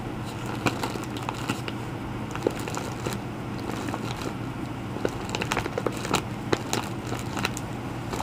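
Package and plastic wrapping being handled, crinkling and crackling in many small irregular clicks, over a steady low hum.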